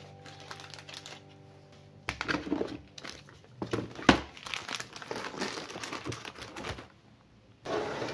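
Plastic snack packets crinkling and rustling as they are handled and packed into a plastic storage bin, with one sharp tap about four seconds in.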